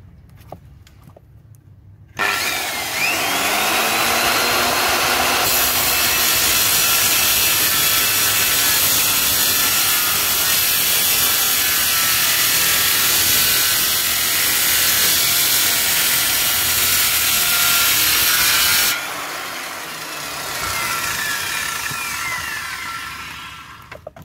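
Makita 100 V circular saw starting about two seconds in, its whine rising as the blade spins up, then cutting through a tree branch for about fourteen seconds. Near the end it is switched off and the blade winds down with a falling whine; it runs smoothly.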